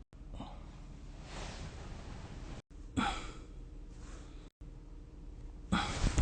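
A sleeping person snoring: a soft breathy breath, then two loud snores that start abruptly, about three seconds in and again near the end.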